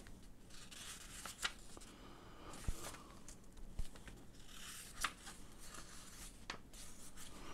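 Paper pages of a small instruction booklet being handled and turned: faint rustling, a brief paper swish about two and a half seconds in, and a few soft ticks.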